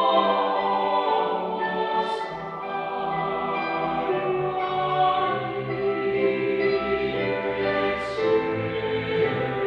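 Mixed choir of men's and women's voices singing together in a church, holding sustained chords that move from one to the next, with brief hissing consonants about two seconds in and near the end.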